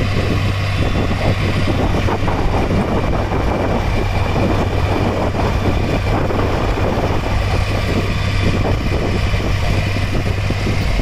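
HMT 3522 tractor's three-cylinder diesel engine running steadily under throttle, driving the hydraulics that tip the loaded trailer.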